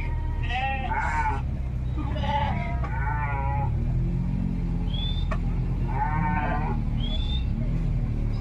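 Sheep bleating from a herd on the road, several wavering calls a second or two apart. A steady low rumble runs underneath, and there are a few short high chirps.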